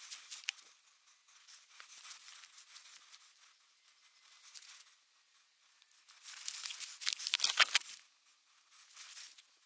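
Rustling and crackling in dry leaves or undergrowth, coming in uneven bursts. The longest and loudest stretch comes about six seconds in and carries a few dull knocks.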